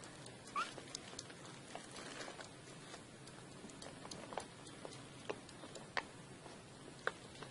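Faint, scattered light taps and scratches of a young kitten's paws and claws scrabbling on a rug and a sock as it plays, with a brief high squeak about half a second in.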